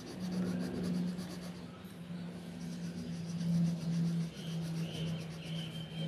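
Colour pencil scratching on paper in quick back-and-forth shading strokes, about seven or eight a second. A low droning tone that steps slightly in pitch runs underneath and is the loudest thing.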